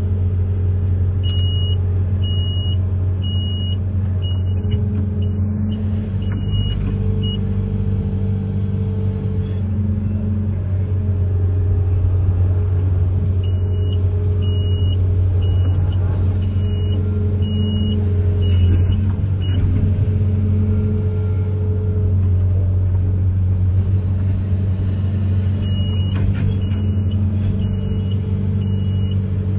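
Amphibious excavator's diesel engine running steadily with a deep hum. A high-pitched warning beeper sounds in three runs of evenly spaced beeps, about one and a half a second: near the start, in the middle, and near the end.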